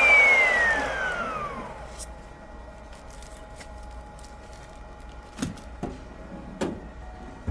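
Electric knife-sharpening machine's motor spinning down, its whine falling steadily in pitch and fading out over about two seconds. A few sharp knocks follow near the end.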